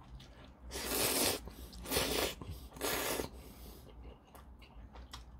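A man slurping ramen noodles in three long slurps about a second apart, followed by a few faint clicks.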